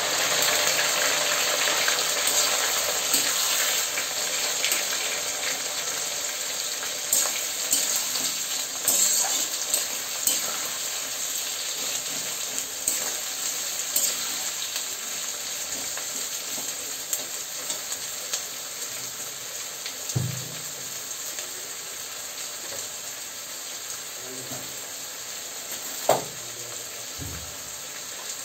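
Sliced onions, garlic, chillies and tomato sizzling in hot oil in a karahi, stirred with a metal spatula that scrapes and clicks against the pan. The sizzle slowly dies down, with one sharp knock of the spatula near the end.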